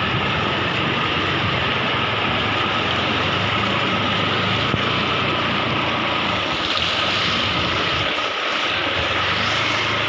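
An engine running steadily under a loud, even rushing noise.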